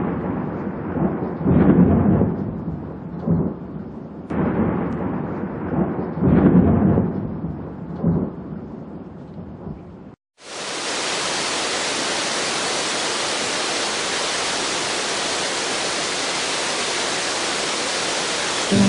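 Thunder rumbling in long rolls, with loud swells about two and six and a half seconds in. About ten seconds in it cuts to a steady, even rush of falling water.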